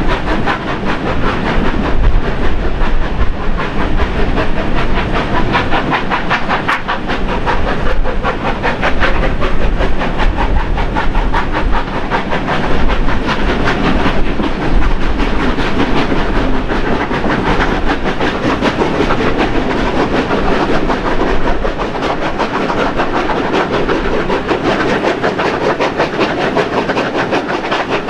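Steam locomotives 3016 and 3642 double-heading up the grade, heard from a carriage close behind: a fast, steady run of exhaust beats mixed with wheel and rail noise. Wind buffets the microphone at the open window.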